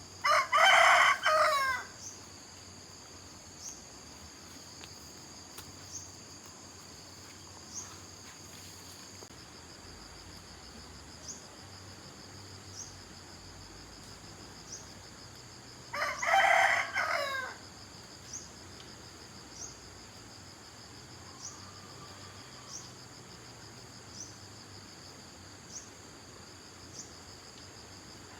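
A rooster crows twice, the first crow at the start and the second about sixteen seconds in, each lasting about a second and a half. Insects keep up a steady high trill throughout, with short chirps about every one and a half seconds.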